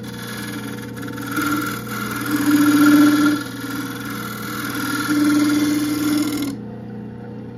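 A gouge cutting the inside of a black locust bowl spinning on a small wood lathe. The cut swells louder in three passes and stops about six and a half seconds in, leaving only the steady hum of the lathe running.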